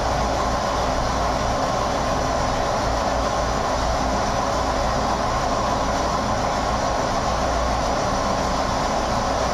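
Lathe running steadily while a centre drill held in the tailstock is fed slowly into the spinning workpiece to make a centre hole.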